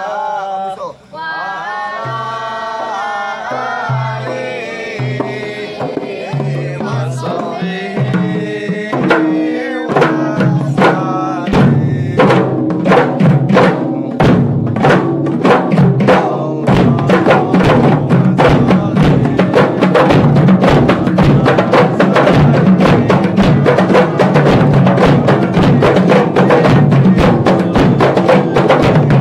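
A man singing a solo line over a few scattered kompang frame-drum strokes, then about ten seconds in the group of kompang drums comes in with fast, dense, interlocking hand-beats that keep going to the end.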